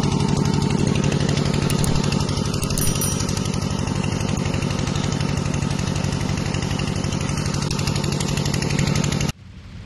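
Engine-driven water pump running steadily, with a low hum and a rapid pulsing, while it pumps floodwater out. It cuts off suddenly near the end.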